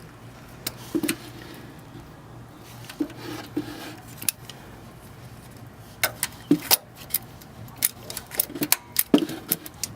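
Irregular metallic clicks and clinks of a hand tool being handled and fitted around the oil filter under the car. The clicks are sparse at first and come thick and fast in the last four seconds.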